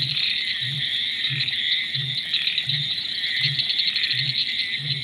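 A low, short 'boop' call repeated evenly about every three-quarters of a second, over a continuous high chirring of night insects.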